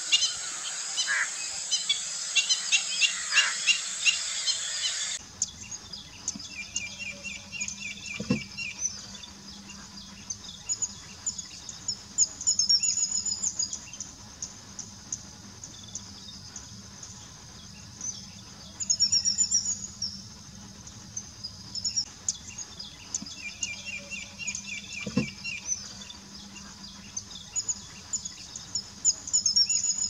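Small birds chirping and calling in a wetland for the first five seconds. An abrupt change then leads to a quieter bird chorus of high chirps, with a rapid trill repeated twice over a faint insect buzz.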